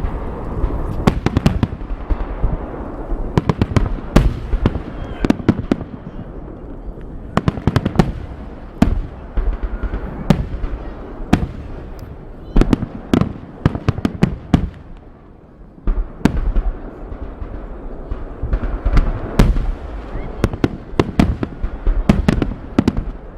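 Festive fireworks salute: a rapid, irregular run of sharp bangs and cracks over a steady low rumble, easing off briefly about fifteen seconds in before picking up again.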